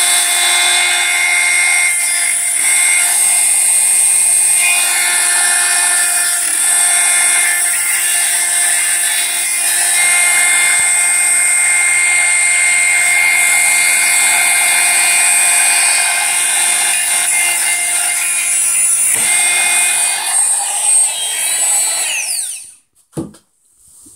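Dremel rotary tool with a cut-off disc running at a steady high whine while cutting a small crimp-on plug connector held in a vise. Near the end it is switched off, and the whine falls in pitch and dies away as the disc spins down.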